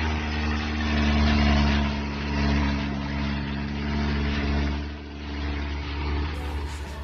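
A vehicle motor running steadily with a low hum, its level swelling and easing several times.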